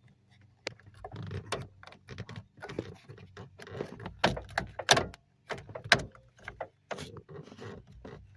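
Irregular metallic clicks, knocks and rattles from the 2002 Honda Odyssey's sliding door cable and roller mechanism being worked by hand, as the cable tensioner is pulled to take the slack off the cable. The sharpest knocks come around the middle.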